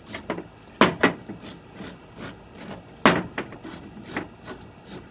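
A brush scrubbing a cleaned metal part of a hose reel in quick, irregular strokes, knocking off loosened dried grease; the sharpest stroke comes about three seconds in.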